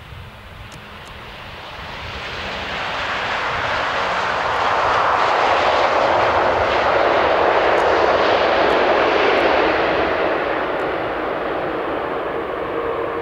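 The four CFM56 jet engines of an SAS Airbus A340-300 on its landing roll-out. The rushing jet noise swells over a few seconds, stays loud for about five seconds, then eases off.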